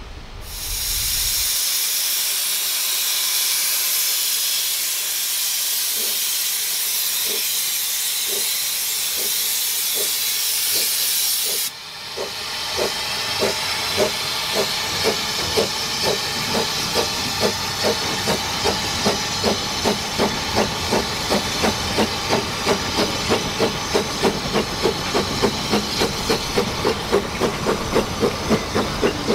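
Narrow-gauge steam locomotive starting a train: a loud hiss of escaping steam, with exhaust chuffs that begin faintly under it. The hiss cuts off suddenly about twelve seconds in, and the chuffs grow louder and quicken from about two to about three a second as the engine gets the carriages moving.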